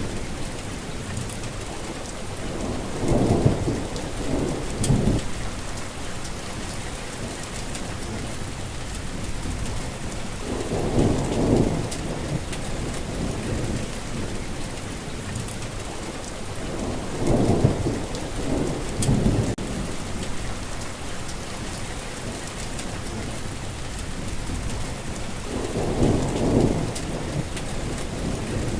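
Heavy rain falling steadily, with thunder rumbling four times, roughly every seven seconds.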